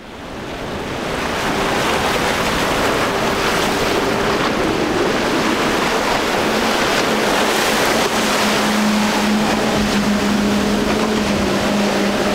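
Outboard-powered boats running through a rough inlet over a steady rush of wind and breaking surf, fading in over the first second or so. About halfway through, the steady drone of outboard engines comes up over the surf.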